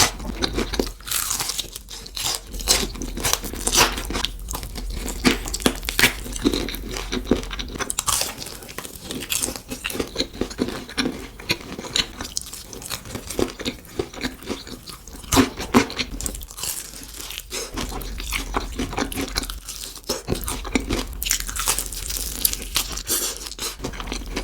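Close-miked biting and chewing of crispy food: dense, irregular crunching and crackling.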